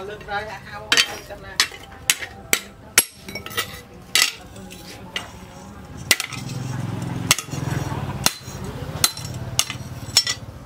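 Hand hammer striking a steel blank cut from a tractor plough disc, held in tongs on a steel post anvil: a series of sharp metallic blows, irregular, roughly one to two a second.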